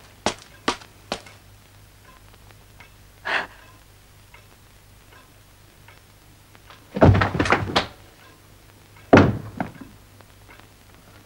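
Knocks and thuds in a small room: three quick light knocks at the start, then a burst of heavy thumps about seven seconds in and a single sharp thud a couple of seconds later.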